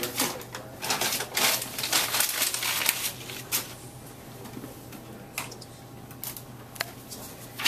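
Paper rustling and the plastic lid and trays of an all-in-one printer clicking and clattering as they are handled. Busy for the first three and a half seconds, then a few separate clicks.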